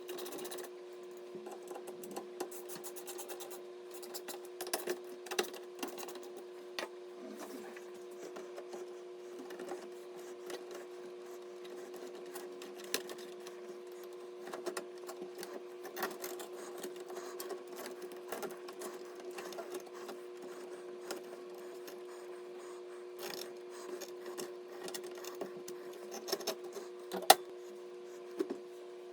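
A steady, even-pitched hum, with scattered light clicks and rubbing; a couple of sharper clicks come near the end.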